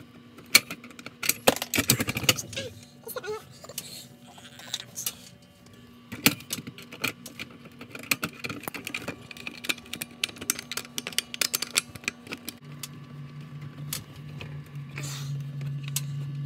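Repeated clicking, scraping and jangling of a key or small metal tool working in a fire alarm manual pull station to reset it, over a faint steady hum.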